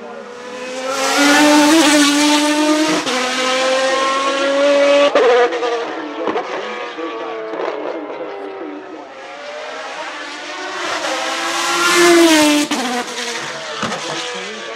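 Maserati MC12 Corsa's V12 engine at high revs under acceleration, its pitch climbing slowly until a sudden drop about five seconds in. After a quieter stretch it climbs loud again and drops off near the end.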